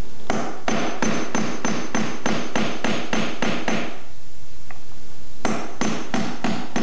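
Hammer tapping a steel nail set to sink 10-penny finish nails into a door-trim corner block: a quick, even series of strikes about three a second, each with a thin metallic ring. The strikes stop for about a second and a half past the middle, then start again near the end.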